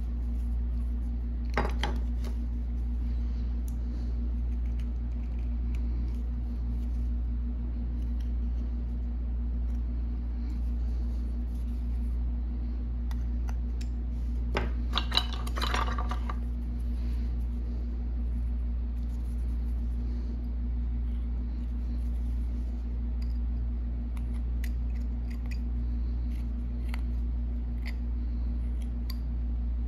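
Carving knife whittling a small piece of wood by hand: faint slicing and scraping cuts with light ticks, a sharp click about two seconds in and a short run of louder hard clacks about halfway through. A steady low hum sits underneath.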